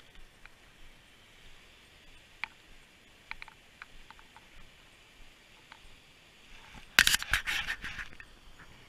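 Scattered faint clicks, then a loud burst of scraping and rustling about seven seconds in, the sound of gear being handled.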